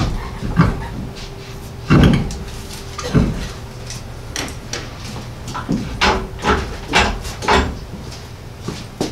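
Clunks and knocks of a car wheel and tools being handled while the front wheel of a jacked-up AMC Eagle wagon is changed: a heavy thump about two seconds in, then scattered sharp metallic clicks and knocks.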